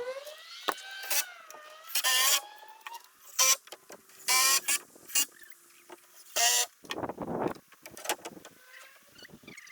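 Small electric motor whining in several short bursts, its pitch rising and falling with speed.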